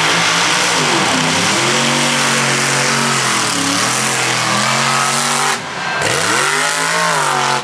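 Lifted mud-bogging truck's engine revving hard as it drives through the mud pit, its pitch dipping and climbing again several times. The loudness drops briefly near the end before the engine picks back up.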